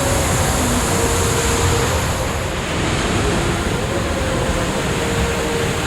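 Loud, steady roar of rushing water from a waterfall and river.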